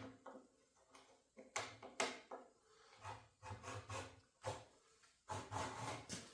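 Scraping strokes of a blade being drawn to score a 1/8-inch plexiglass sheet, irregular and rasping, with a couple of sharp clicks about a second and a half in.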